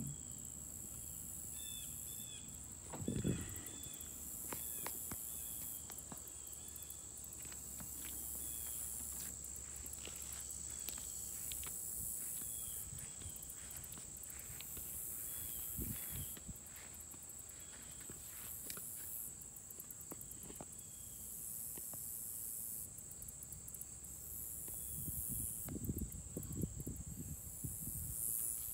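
Insects chirping: a steady high-pitched drone with pulsing bursts above it and short repeated chirps. A few low thumps come about three seconds in and again near the end.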